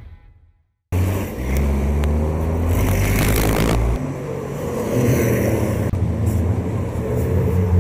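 Racing trucks' diesel engines running hard on the track, starting abruptly about a second in, with a louder rush as a truck goes by around three seconds in.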